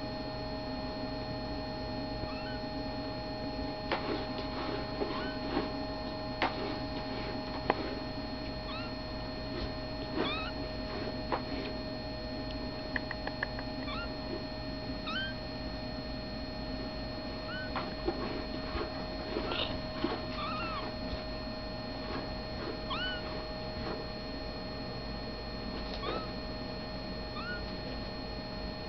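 Ten-day-old kittens mewing: many short, high-pitched mews scattered throughout, over a steady electrical hum.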